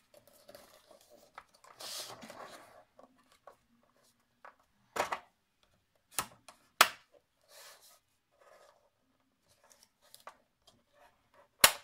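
Cardstock being folded and creased by hand on a plastic scoring board, rustling and sliding, with a bone folder pressed along the crease. Several sharp taps stand out, a few in the middle and the loudest near the end.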